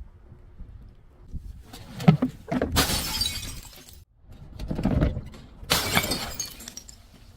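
Glass bottles being broken and crushed: two loud bursts of shattering, crunching glass, about three seconds apart, each led by a lower crunch.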